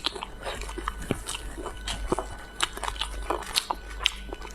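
A person chewing and biting food close to the microphone: irregular sharp mouth clicks and small crunches, several a second.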